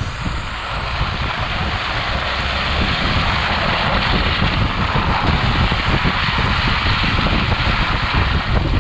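Wind buffeting a camera mounted at a Jeep's wheel, mixed with rumble from the tyre rolling over a snowy off-road trail: a steady, loud noisy roar that grows slightly louder over the first few seconds.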